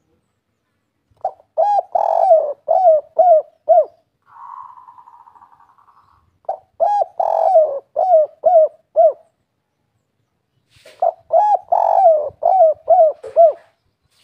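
Spotted dove (tekukur, derkuku) singing its 'kuk 3' cooing song three times. Each phrase is a run of about six coos, the last three short and evenly spaced. A softer buzzy trill fills the gap after the first phrase.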